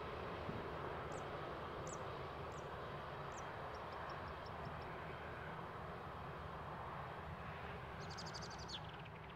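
Rolls-Royce Trent 7000 turbofans of an Airbus A330neo heard at a distance as a steady jet rumble. Small birds chirp over it: four short high chirps in the first few seconds, then a quick run of faint ticks, and a falling trill near the end.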